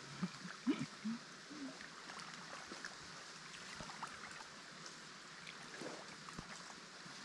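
Faint, steady rush of flowing river water. A couple of brief, faint voice sounds come in the first two seconds, and a few light clicks are scattered through it.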